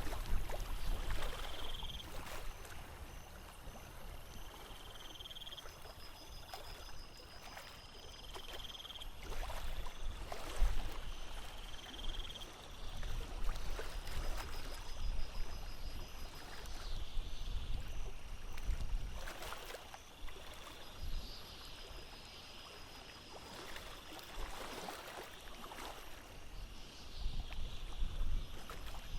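Water lapping and splashing in small irregular slaps, with a low rumble beneath. Over it, a short high call repeats about every three seconds in the first half, with faint high trills.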